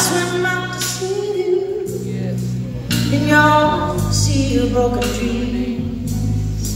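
Live concert music: a woman sings a slow ballad into a microphone through the PA with long held notes, backed by the band's steady bass.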